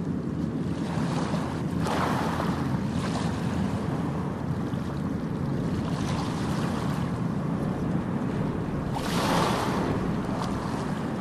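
A steady rushing noise, like wind or surf, that swells twice: about two seconds in and again near the end.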